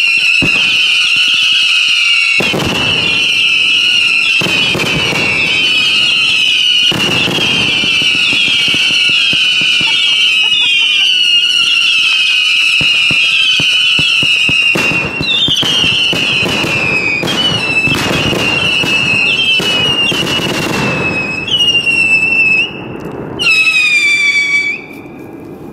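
Fireworks going off at close range: many overlapping high whistles, each sliding slightly down in pitch, over scattered bangs and crackle. Near the end two last whistles stand out on their own, and each cuts off abruptly.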